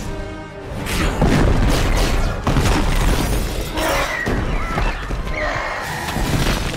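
Film action sound effects of glass shattering and heavy crashing impacts as the Hulk smashes into a glass office tower, with an orchestral score underneath. The Hulk roars around the middle.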